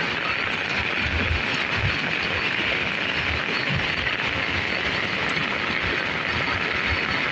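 Steady rain falling, an even hiss, with irregular low rumbles underneath.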